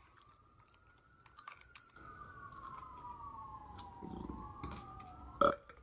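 Emergency-vehicle siren wailing, two slow rising and falling tones that overlap and cross, over small clicks and smacks of chewing on chicken wings. A brief loud horn-like blast comes near the end.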